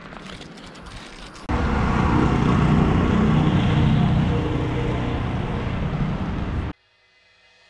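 Wind buffeting the microphone of a camera riding on a moving bicycle, a loud, even rumble and rush. It starts abruptly about a second and a half in, after quieter riding noise with a few clicks, and cuts off suddenly near the end.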